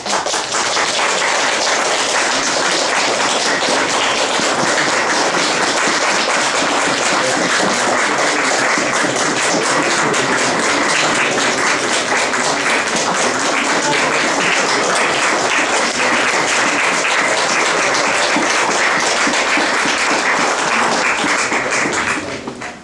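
Audience applauding: dense, steady clapping that starts suddenly and dies away near the end.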